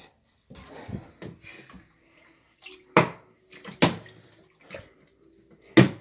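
Water sloshing and splashing in the wash tub of a portable twin-tub washing machine, with three louder splashes in the second half.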